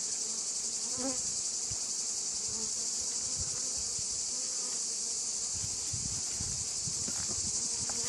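A steady, high, even shrilling of insects fills the background, with a faint lower buzz of honeybees around the open hive frame under it.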